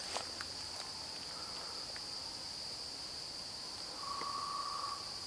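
Steady high-pitched insect chorus, with a few faint clicks just after the start and a brief faint steady tone about four seconds in.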